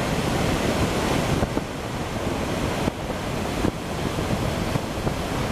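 Sea surf churning into foaming white water, with wind buffeting the microphone.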